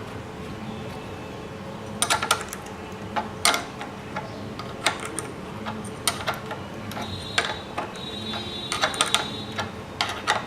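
A 12 mm spanner working the fuel-tank mounting bolt loose: sharp metallic clicks and clinks in small clusters, about one cluster every second.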